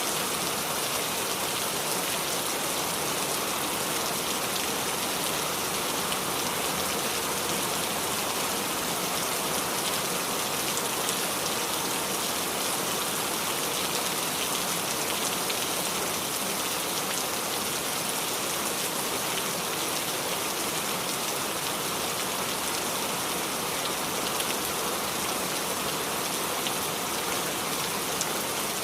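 Steady rain falling and dripping on a small tree: a dense, even patter of many drops with no change in strength.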